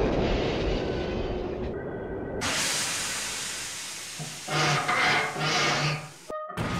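Steam locomotive sound effects: a fading rumble of train and wheels on ice, then a sudden loud hiss of steam about two and a half seconds in, with two louder swells near the end.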